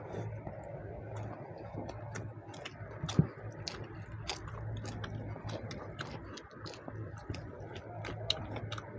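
People eating chicken curry with rice: many small irregular mouth clicks and chewing sounds over a steady low hum, with one louder knock about three seconds in.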